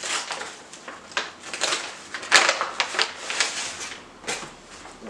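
Shipping package being opened by hand: uneven rustling and scraping of packaging with scattered clicks, and a sharp snap about halfway through.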